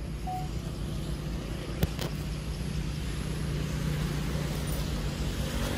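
Motorbikes passing on a road, a steady low engine drone that slowly grows louder, with a single sharp click about two seconds in.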